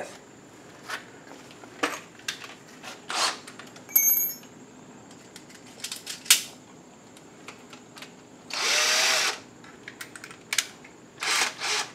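Handheld electric drill motor spinning for about a second, a little past halfway through. Around it are scattered clicks and knocks of tools being handled and a bit being fitted into the chuck, with a short metallic ring about four seconds in.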